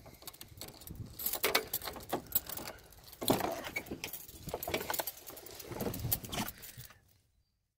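Handheld phone handling noise while someone walks to a car and climbs in: scattered rustling of clothing, clicks and light jingling. It cuts off to silence about seven seconds in.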